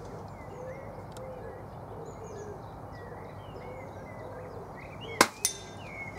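Birds chirping and singing over a steady outdoor background. About five seconds in, a sharp air-rifle shot, followed a quarter second later by a ringing metallic ting of a pellet striking a steel target.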